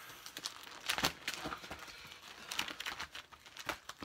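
Pokémon cards and plastic binder pages being handled: crinkling and rustling with sharp clicks, loudest about a second in and again about two and a half seconds in.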